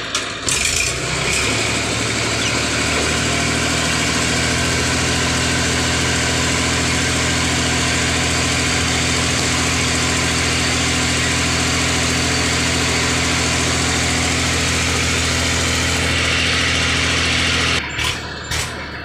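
Diesel tractor engine running steadily under load as it pulls a heavily loaded soil trolley, with a firm, even throb that strengthens a little after about three seconds. Near the end the steady sound breaks up into short choppy bursts.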